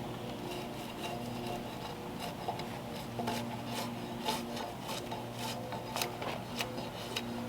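Background music with held notes that step in pitch, over irregular sharp clicks and scraping, woodworking sounds.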